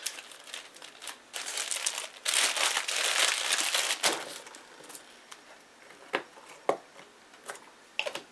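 Clear plastic bag crinkling as a lump wrapped in it is handled, loudest from about two to four seconds in. A few light knocks follow near the end.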